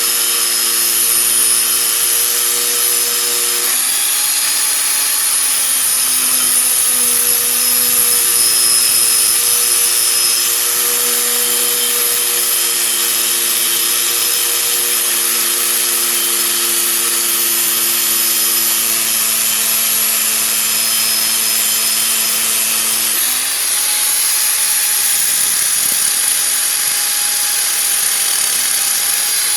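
Angle grinder fitted with a thick grinding disc running continuously against a car's brake disc, grinding down the worn ridge that rubs on the brake pad and makes the wheel squeak. A harsh, steady hiss over the motor's hum, whose pitch shifts about four seconds in and again near the end.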